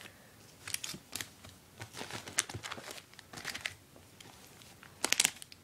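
Comic books being handled and slid over one another, rustling and crinkling in irregular strokes, with a quick cluster of sharper crinkles about five seconds in.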